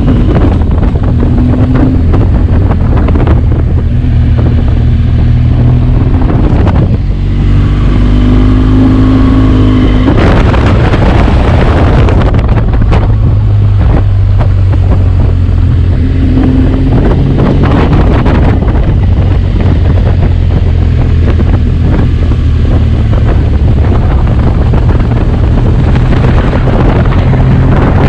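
BMW R1200GS motorcycle's boxer twin engine running on its stock exhaust while riding, with wind buffeting the microphone. The engine note shifts briefly about a third of the way in, then settles back to a steady run.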